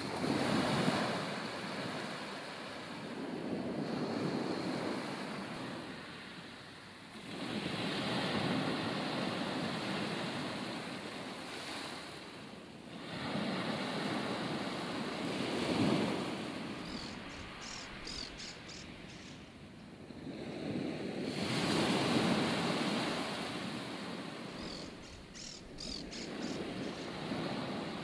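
Ocean surf washing ashore, a wash of noise that swells and fades every four to eight seconds, with wind blowing. Twice, about two-thirds of the way in and near the end, there is a quick run of faint high chirps.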